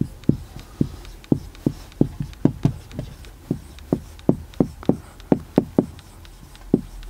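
Marker pen writing on a whiteboard: an uneven run of sharp taps and knocks, two to three a second, as each stroke lands on the board, with a brief pause shortly before the end.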